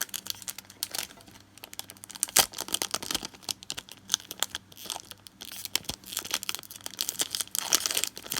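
Plastic wrapping on a pack of trading-card sleeves being crinkled and torn open by hand: a dense run of irregular crackles, busiest about two seconds in and again near the end.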